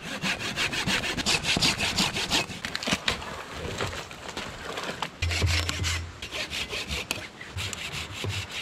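A hand saw cutting dead wood for firewood, stroke after stroke, in three runs with short pauses between them.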